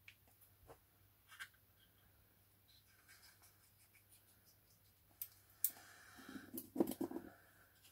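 Faint snips and clicks of small scissors cutting into the leathery shell of a ball python egg, with a few sharper clicks and a brief burst of handling noise near the end.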